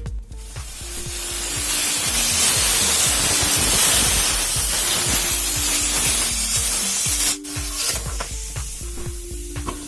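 Background music with a steady beat, overlaid by a loud hiss that builds over the first few seconds and cuts off sharply about seven seconds in, then comes back fainter.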